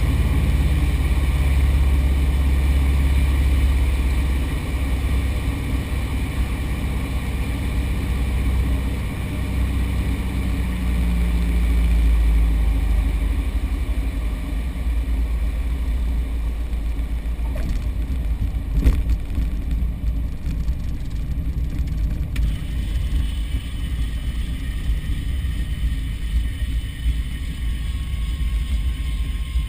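Light aircraft's piston engine and propeller running steadily, a deep drone with a strong low rumble, with one sharp click about two-thirds of the way through.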